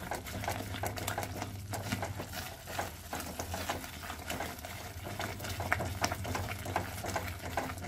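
A silicone spatula stirring and scraping thick cashew-and-tomato masala paste as it fries in a kadhai, with many short irregular scrapes and clicks. A steady low hum runs underneath.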